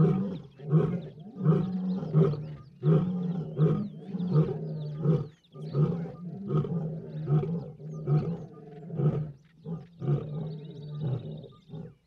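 Male lion guarding a zebra kill, calling in a long run of deep rhythmic grunts, about three every two seconds: a possessive warning to the others to keep off the carcass.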